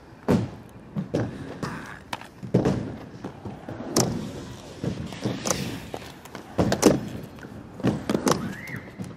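Inline skates landing and rolling on a skatepark ramp: a string of separate thuds and clatters, roughly one a second, with the loudest about seven seconds in.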